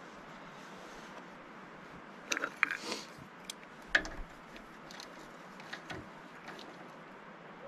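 Metal hand tool clicking and clanking against the gland end of a John Deere 650J's hydraulic lift cylinder as it is repacked: a quick cluster of sharp clicks about two and a half seconds in, one loud clank at about four seconds, then a few lighter ticks.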